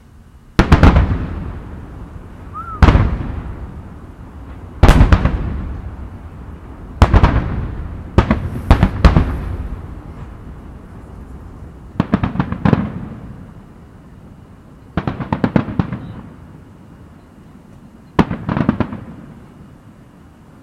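Aerial firework shells bursting in a series of about nine loud booms, one to three seconds apart. Each boom dies away over a second or two, and several later ones break into quick clusters of crackling pops.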